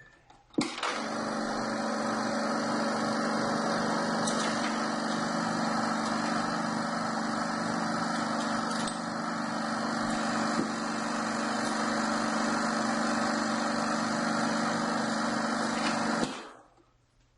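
Bell and Howell 16mm sound film projector switched on with a click, its motor and fan running with a steady hum and whir, then shut off near the end.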